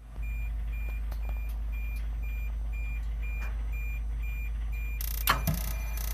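A boiler beeping repeatedly on start-up: short, high beeps about twice a second over a steady low hum. A little after five seconds, two sharp knocks close together stand out above the beeping.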